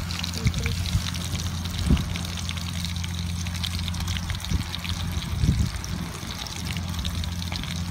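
Oil sizzling and crackling in a small camping pot of frying egg and sliced cheese sausage on a portable butane gas stove, a dense run of fine crackles over a steady low hum.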